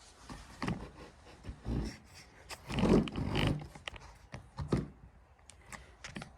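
Handling noises: scattered clicks and light knocks, with a louder rustling scrape about three seconds in.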